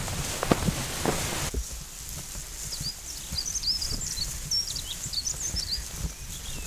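Footsteps on loose slate stones for about a second and a half, then a songbird giving a quick run of short chirps and twitters.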